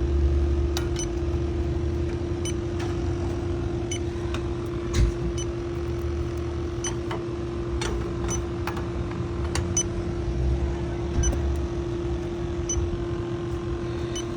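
Electronic refrigerant leak detector ticking slowly and unevenly, about once a second, over a steady low hum and wind rumbling on the microphone. The slow, even ticking means it is not picking up a leak.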